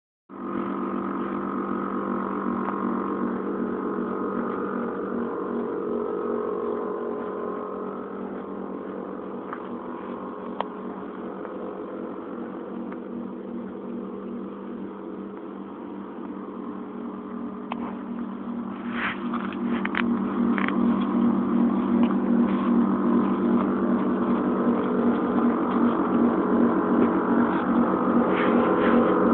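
Steady mechanical hum from a parked, air-bagged Infiniti G35 sedan, growing louder in the last third. A few short clicks come about two-thirds of the way through.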